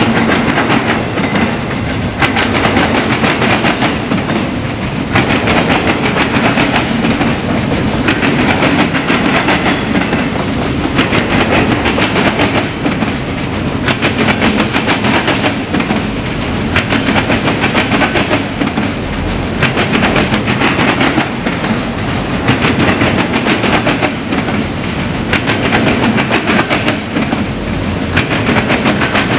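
Train cars rolling past close by, the wheels clattering over the rail joints in dense bursts of clicks that come back every couple of seconds as car after car goes by.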